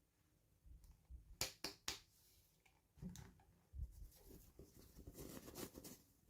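Faint handling noises: three quick sharp clicks about a second and a half in, then soft rustling and scraping later on.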